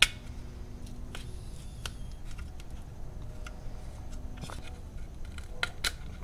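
Small clips being snapped and pressed onto a motorcycle headlight mounting ring. There is a sharp click right at the start, then scattered light clicks and scrapes of handling, with a few more clicks near the end.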